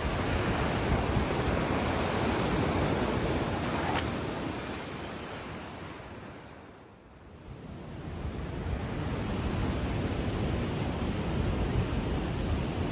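Ocean surf washing on a beach, a steady rushing that fades away about halfway through and swells back up.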